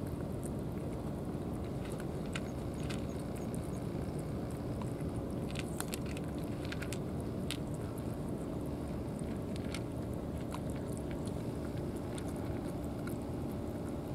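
Two cats chewing dry kibble and wet cat food from trays: scattered short crunching clicks, mostly in the middle, over a steady low rumble.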